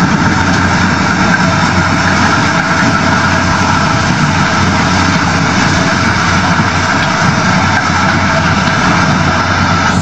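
Corn combine harvester running steadily as it cuts standing corn, its diesel engine and machinery giving an even, unbroken mechanical noise with a low hum underneath.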